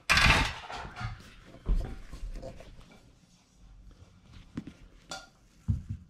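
Sheet-metal dishwasher toe plate clattering as it is handled: a loud metallic rattle with a short ring at the start, a dull thump about two seconds in, then a few faint knocks.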